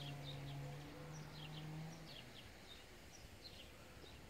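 Birds chirping in short descending calls, a few in quick succession at a time, over a faint steady low hum that stops about two seconds in.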